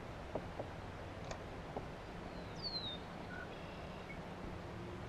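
Outdoor pond ambience with a faint steady hum, a few light clicks in the first two seconds, and a bird's single short descending whistle about two and a half seconds in.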